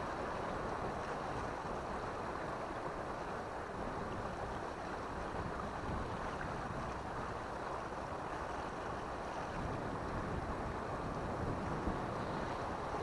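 Steady wash of sea surf against a rocky shore, mixed with wind.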